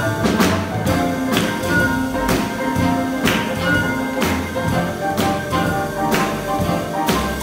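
Small jazz band playing a blues: walking upright bass, drum kit with a cymbal struck about once a second, piano and keyboard, and held melody notes above.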